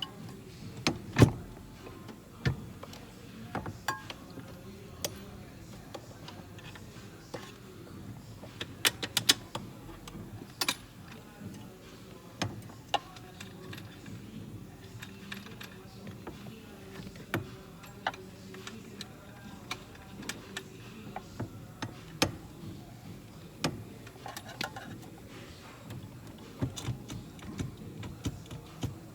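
Irregular clicks and knocks of hand tools and metal fasteners being handled, with a cluster of quick clicks about nine seconds in, over a steady low hum.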